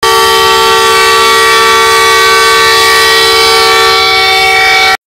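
Diesel locomotive air horn sounded in one long, loud, steady blast of several tones at once, cutting off suddenly near the end.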